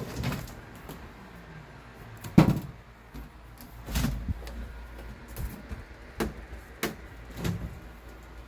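A series of separate clunks and knocks, about six in all, the loudest about two and a half seconds in.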